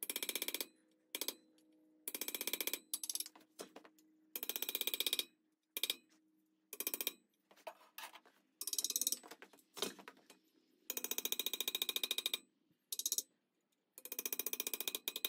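Hammer tapping a leaf-spring chisel into a steel top jaw to cut gripping teeth: quick runs of light taps with short pauses between them, and a faint ring from the steel under some runs.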